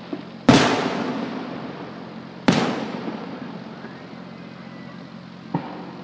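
Aerial firework shells bursting: two loud booms about two seconds apart, each trailing off in a long echoing decay, then a smaller pop near the end.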